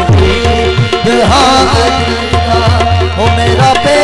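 Qawwali music: tabla keeping a steady rhythm, its bass drum strokes sliding down in pitch, under a held melodic line.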